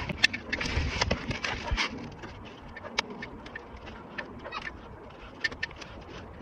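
Hands handling an air-conditioning pipe fitting under a car: rustling and small clicks of metal and plastic. The rustling dies down about two seconds in, leaving sparse light clicks.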